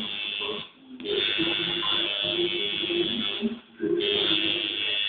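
Tattoo machine buzzing as the needle works ink into the skin. It stops briefly twice, once within the first second and again about two-thirds of the way through.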